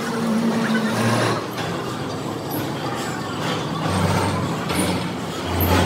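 Steady mechanical din of a machine shop, a low engine-like hum under a hiss, with the hum swelling near the end and a few faint metallic knocks.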